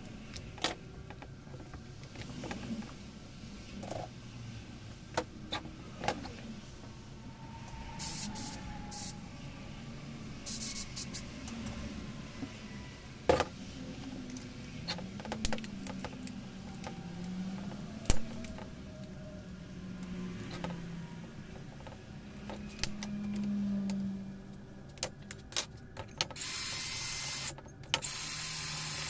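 Metal tools and chainsaw parts clicking and clinking on a steel workbench as a Husqvarna 365 chainsaw is taken apart by hand. Near the end a cordless drill-driver runs in two short steady bursts with a high whine, driving the saw's screws.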